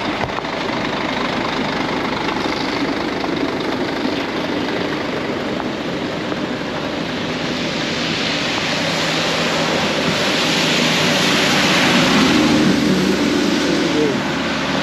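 Road traffic on a wet road: a steady hiss of tyres and running engines, growing louder in the second half as vehicles pass close by.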